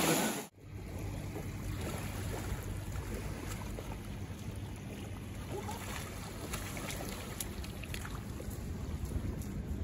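Steady wind buffeting the microphone over small waves washing onto a shallow sandy shore, starting after a sudden cut about half a second in.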